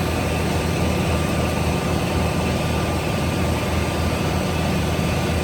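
A power tool running steadily, cutting strips of floor panel material: a low motor hum under a dense, even hiss that starts right at the beginning.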